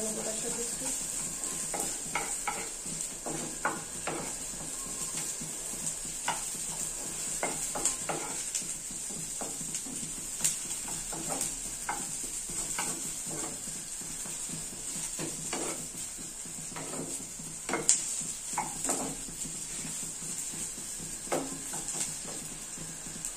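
Onions frying in mustard oil with nigella seeds, a steady sizzle. A wooden spatula stirs and knocks against the frying pan every second or so, irregularly, with one sharper knock about three quarters of the way through.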